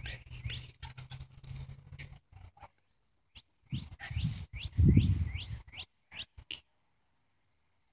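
A bird chirping in a series of short rising calls, about three a second, in two runs, with low thumps of footsteps on dry ground beneath the second run.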